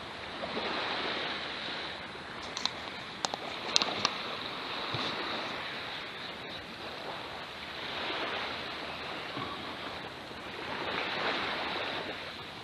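Surf washing on the shore, a steady hiss that swells and fades about three times. A few sharp clicks come about three to four seconds in.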